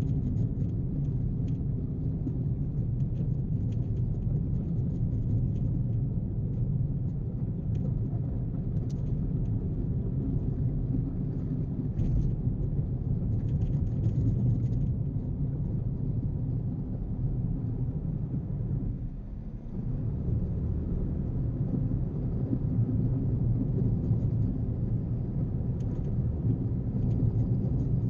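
Steady low rumble of a vehicle driving at highway speed, with engine and road noise, dipping briefly about two-thirds of the way through.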